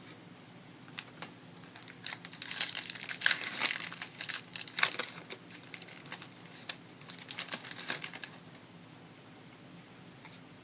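Foil trading-card pack wrapper crinkling and crackling as it is handled and torn open. The rapid crackle starts about two seconds in and stops after about six seconds.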